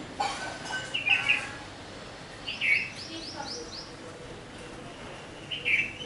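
Birds chirping: short calls about a second in, in the middle and near the end, with a quick run of about six high notes in the middle.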